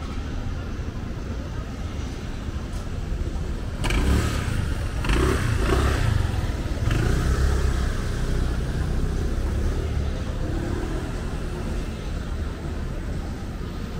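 Outdoor traffic rumble, with a motor vehicle passing and accelerating, louder from about four seconds in to about ten.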